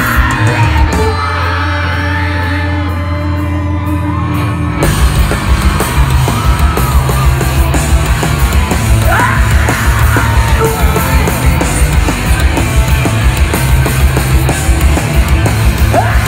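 Live rock band playing loud: a held chord with low bass for the first five seconds or so, then the full band with fast drums comes in, with yelling over it.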